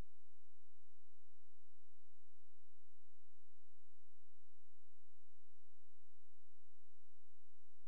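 A steady, unchanging pure tone at one pitch, with a low hum beneath it. No ball clicks or cue strikes are heard.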